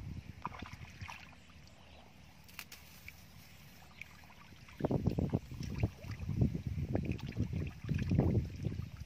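Splashing and sloshing in shallow muddy water, quiet at first, then from about halfway through a run of quick irregular splashes as bare hands grab at fish stranded in the puddle.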